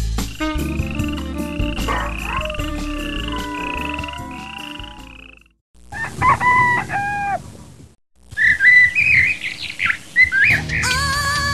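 A string of sound effects. Over fading background music, a high shimmering tone rises six times in a row and dies away. After a short silence a rooster crows, and then birds chirp quickly and high, a morning cue.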